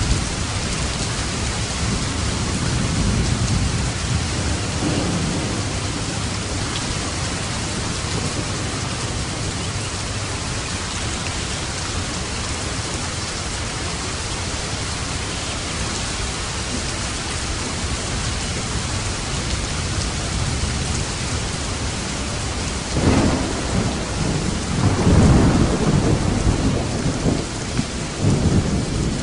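Steady heavy rain with rolling thunder: low rumbles early on, then a sharp thunderclap near the end followed by loud rumbling that rolls on for several seconds.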